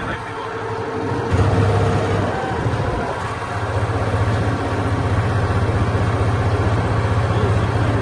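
Wooden canal tour boat's engine running under way. It picks up about a second and a half in, eases briefly around three seconds, then runs steadily.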